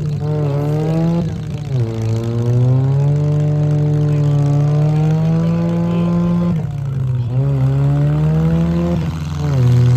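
Demolition-derby compact car engines revving hard, pitch rising and falling as the cars drive and back up, with short dips in revs about two seconds in and again around seven seconds.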